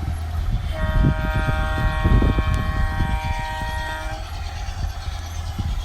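G-scale model train's sound system sounding a multi-tone horn in one long blast of about three and a half seconds, starting about a second in, just after an earlier blast ends. A steady low rumble of the running train runs underneath.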